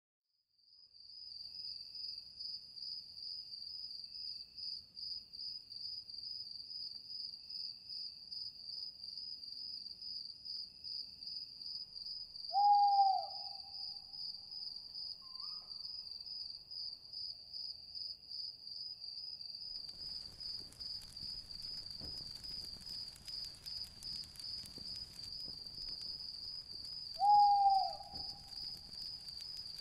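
Night ambience: crickets chirping in a steady, fast-pulsing high chirr, with an owl hooting twice, about fifteen seconds apart, each hoot short and dipping slightly in pitch. A faint hiss joins about two-thirds of the way through.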